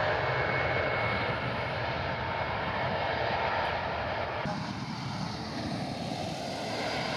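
Airbus A319 twin jet engines at takeoff thrust as the airliner rolls down the runway and lifts off, a steady jet rumble and roar. About four and a half seconds in the sound changes abruptly to a thinner, slightly quieter jet noise as the aircraft climbs away.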